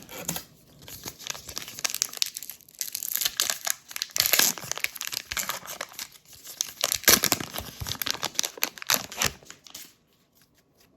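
Trading card pack wrapper being torn open and crinkled by hand: a dense run of crackles and rips that stops near the end.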